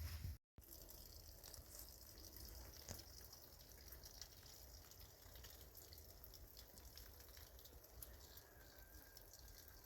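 Faint water dripping and trickling, with scattered soft drips; the sound cuts out completely for a moment near the start.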